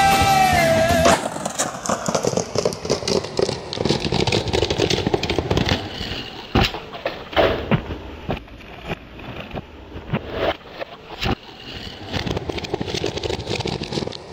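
Rock music that cuts off about a second in, giving way to skateboard wheels rolling and rumbling on concrete. The board knocks and clacks sharply several times.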